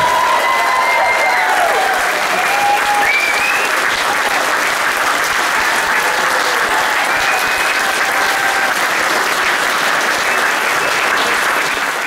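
Live theatre audience clapping steadily, with a few cheering voices over the clapping in the first few seconds.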